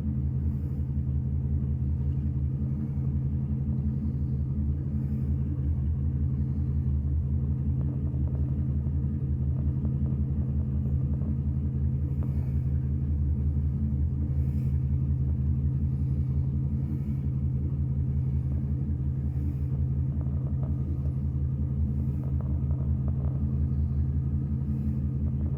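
Corvette engine idling steadily: an even, low rumble that holds without revving.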